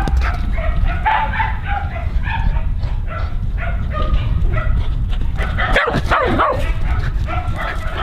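Dogs barking and yipping in quick, repeated calls, with a longer call that rises and falls about six seconds in, over a steady low rumble.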